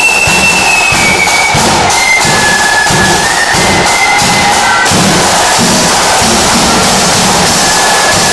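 Marching band playing loud: rattling side drums, a big bass drum and clashing cymbals under a melody of short high held notes that change pitch.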